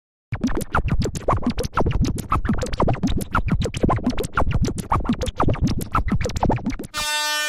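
Rapid, dense clanging of animated railroad-crossing bells, about eight strikes a second, with the strikes sliding in pitch like a sped-up, scratched sound effect. Near the end the clanging cuts off and a steady horn-like tone begins.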